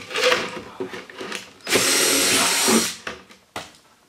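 Cordless drill boring a 5/16-inch hole through a plastic bucket: a short burst, then a steady run of about a second that stops about three seconds in. A short knock follows near the end.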